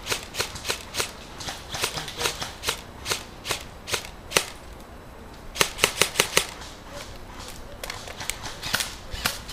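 Airsoft rifles firing single shots in quick, irregular succession: sharp clicking snaps, about two to four a second, with a pause of about a second just before halfway and then a rapid cluster.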